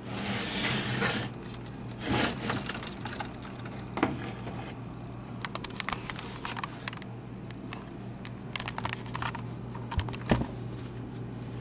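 Old General Electric electric motor running with a steady low hum, under scattered sharp clicks, taps and rustling.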